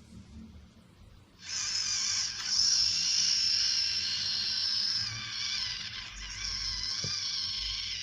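Salamander hissing: a long, high, breathy hiss that starts about one and a half seconds in after a brief quiet gap and then holds steady.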